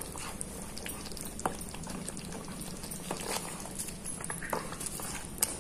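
Thick butter chicken gravy bubbling in a pan while a wooden spatula stirs it: soft, irregular wet plops and squelches.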